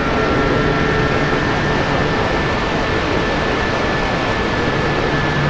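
Steady hiss of atmospheric static (QRN) from a shortwave receiver tuned to the 11-metre CB band at 27.028 MHz, with a faint steady whistle running under it between CB transmissions.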